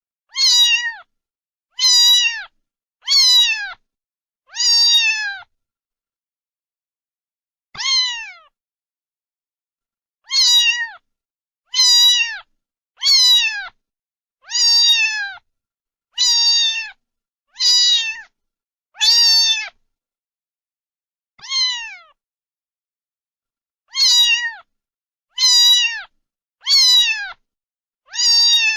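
A domestic cat meowing over and over, about seventeen fairly high-pitched meows, each falling in pitch at the end. They come in quick runs with a few longer pauses between.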